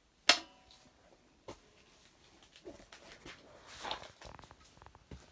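A sharp knock shortly after the start, with a brief ring after it, then faint rustling and a few scattered light taps: handling noise as the recording phone is carried around the obsidian sculpture.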